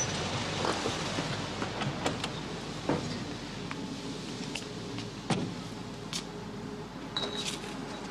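Street traffic noise, a steady hiss that is louder for the first few seconds and then eases, with scattered clicks and knocks on top, the sharpest a little past halfway.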